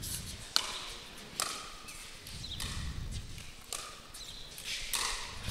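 Paddles striking a plastic pickleball in a soft net exchange: about five sharp pops, roughly one a second, each with a brief ring.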